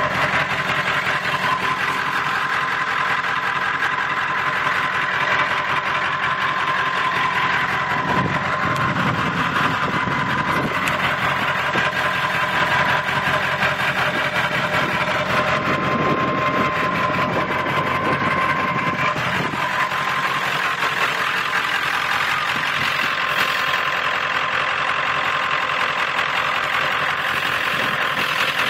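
1997 Ford F-250's 7.3-litre Powerstroke V8 turbodiesel idling steadily, with a steady high turbocharger whistle running over the engine sound.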